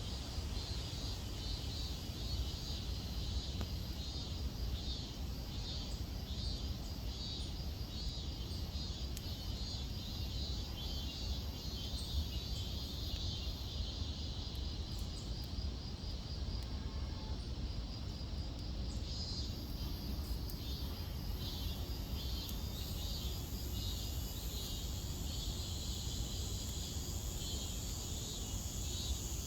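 Insects calling in a rapidly pulsing trill, with a steadier high hiss joining about two-thirds of the way through, over a low rumble.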